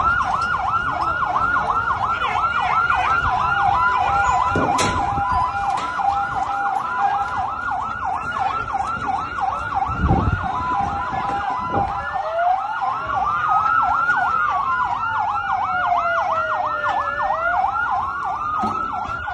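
Police siren on its fast yelp setting, about three sweeps a second, steady. About twelve seconds in, a second, slower wailing siren joins, rising and falling in pitch. There is a dull thump about ten seconds in.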